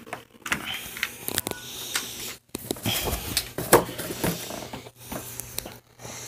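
Irregular clicks, taps and knocks with rustling, the sound of hard plastic things being handled and moved about at close range.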